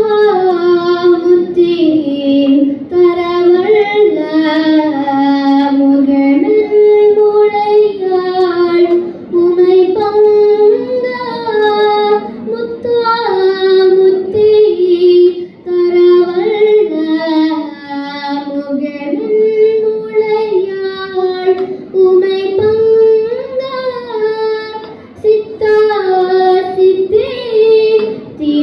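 A young girl singing a Tamil devotional hymn solo into a microphone: one voice carrying a winding melody, with gliding ornaments on the notes and short breaths between phrases.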